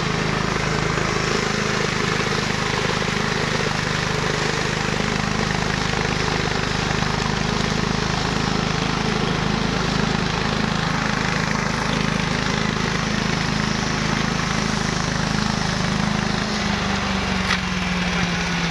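A 14 HP Subaru petrol engine on a 1-metre flail mower runs steadily under a load. About 16.5 seconds in, its note shifts. A single sharp click sounds near the end.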